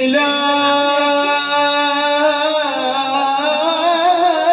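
A male voice holds one long chanted note in the melismatic style of an Arabic du'a recitation, starting abruptly. The note is steady at first, then wavers and bends upward in pitch about halfway through.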